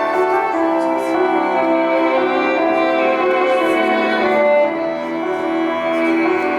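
Instrumental music: a melody of long held notes over a steady accompaniment.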